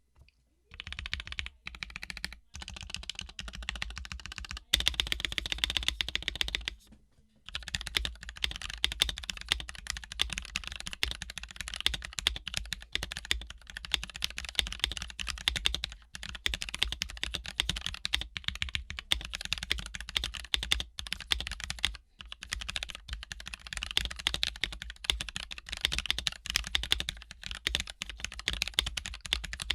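Fast typing on a Tokyo60 mechanical keyboard with Gateron Yellow linear switches lubed with 205g0: a dense run of keystrokes, broken by short pauses and one longer gap about seven seconds in.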